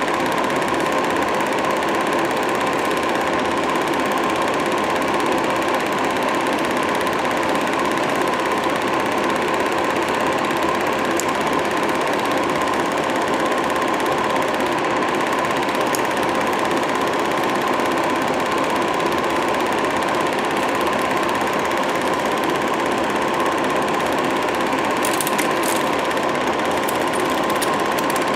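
Film projector running: a steady mechanical whirring clatter, with a few sharp ticks near the end.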